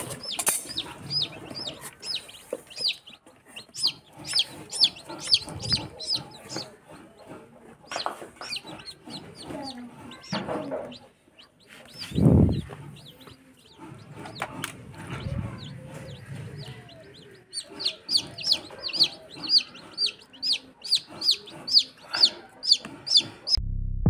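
Newly hatched chicks peeping: a steady run of short, high, falling cheeps, about three a second, thickest in the last few seconds. A dull thump sounds about halfway through.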